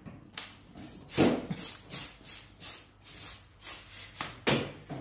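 Handling noise from a cordless pole pruner: hard knocks and rubbing as its metal telescopic pole and plastic motor head are moved about. The loudest knock comes about a second in and another sharp one near the end, with a run of lighter rubbing and clicking between.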